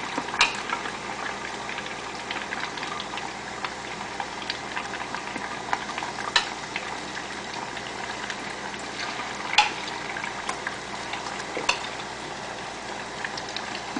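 Chicken pieces deep-frying in a pot of hot oil: a steady sizzle and bubbling, with a few sharper pops now and then.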